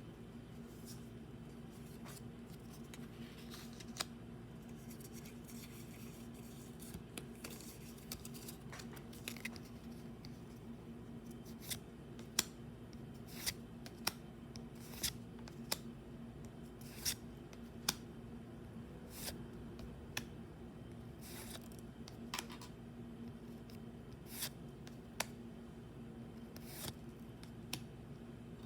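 Pokémon trading cards and their packaging being handled: a string of sharp, separate clicks and snips, sparse at first and then about one a second, over a steady low hum.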